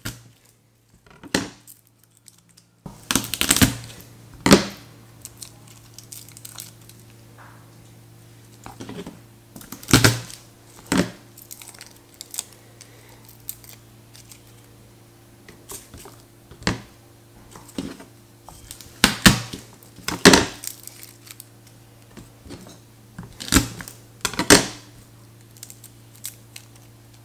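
Garlic cloves being peeled by hand on a wooden cutting board: the dry papery skins crackle and tear in short, sharp bursts every few seconds. A steady low hum runs underneath from about three seconds in.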